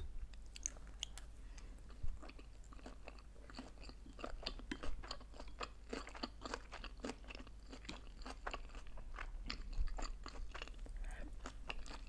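A person chewing sushi rolls with the mouth close to the microphone: a run of many short, irregular wet clicks and crunches, with a few louder ones about two, five and ten seconds in.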